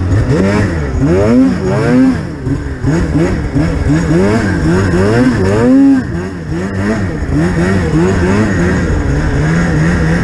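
Polaris Pro RMK 800 snowmobile's two-stroke twin engine revving up and down again and again, with two big surges, then settling to an even pitch near the end.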